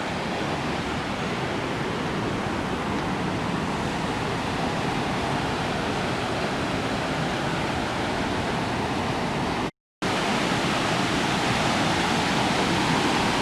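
Fast-flowing river water rushing steadily. It cuts out for a moment about ten seconds in, then comes back a little louder.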